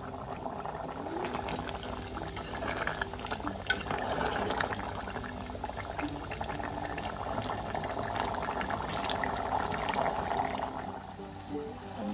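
Broth boiling hard in an open aluminium pressure cooker: steady bubbling with many small pops.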